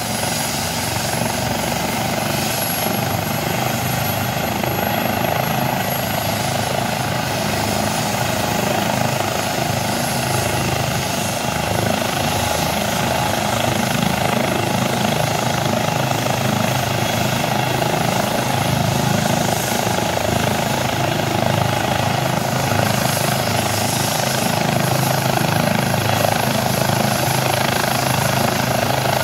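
Airbus H135 air ambulance helicopter running on the ground with its main rotor turning, readying for take-off: a steady turbine and rotor sound that grows gradually louder.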